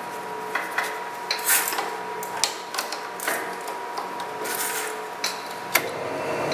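Metal clicks and rattles as a drill bit is fitted into a drill press's keyed chuck and the chuck key is turned to tighten it. Near the end there is a sharp click, and the drill press motor starts running.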